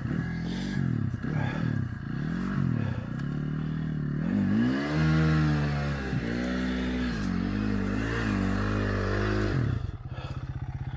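Dirt bike engine revved hard in repeated surges, rising and falling, as the bike struggles for grip on a slick muddy hill climb. The longest, highest rev comes about halfway through, and near the end the engine drops back to a steady idle.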